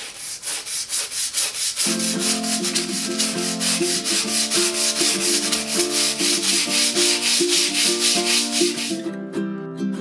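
Stiff-bristled hand scrub brush scrubbing wet tile grout with grout cleaner, in rapid back-and-forth strokes, several a second; the scrubbing stops about nine seconds in. Background music comes in about two seconds in.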